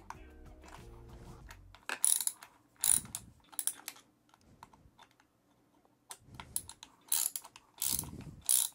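Short bursts of metallic clicks and clinks from a small hand tool backing out the steel bolts on the side cover of a Dualtron scooter's Minimotors hub motor. There are two clusters, with a quiet gap of about two seconds between them.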